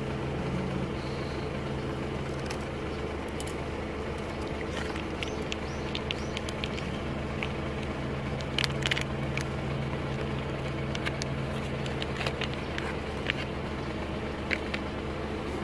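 Steady low hum of an engine idling, with scattered faint clicks and ticks over it.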